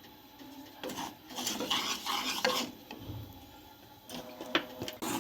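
Spoon stirring and scraping semolina in hot ghee in a pan to start roasting it for halwa. The scraping comes in two spells, with a sharp knock of the spoon near the end.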